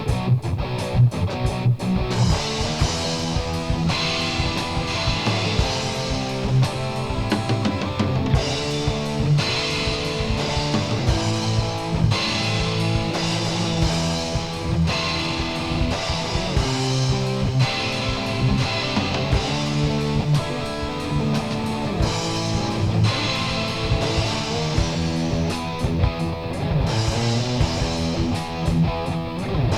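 Rock background music with strummed electric guitar and a drum kit keeping a steady beat.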